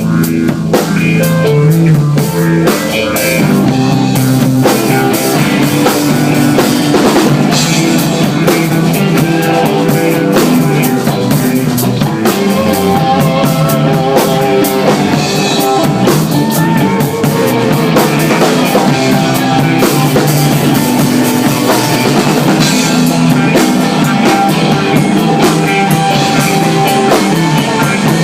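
Live rock band playing: a drum kit keeping a steady beat under guitar, loud and continuous.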